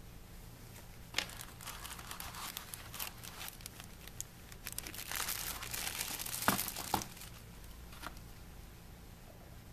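Clear plastic packaging bag around a trimmer accessory crinkling as it is handled, starting about a second in and easing off after about seven seconds, with a sharp click among the crinkling.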